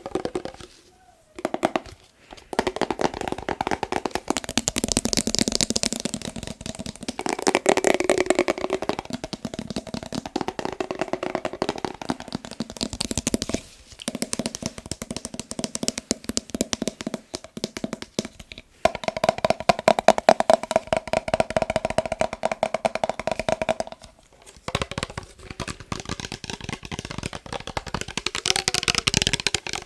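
Rapid tapping on a glass mason jar, a dense run of quick strikes with a ringing glassy tone, stopping briefly a few times.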